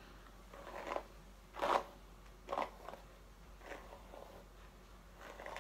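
Five short, soft scraping rustles, close handling noises; the loudest comes near the middle.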